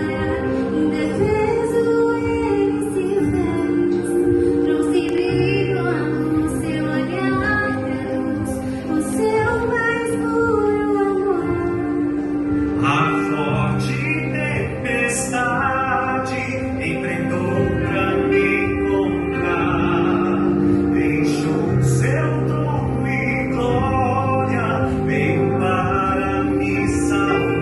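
Vocal group singing a Christian gospel song over sustained low accompanying notes.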